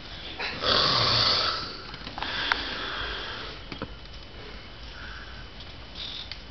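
A girl snoring in her sleep: one loud, noisy snoring breath about a second in, then softer breathing, with a couple of small clicks.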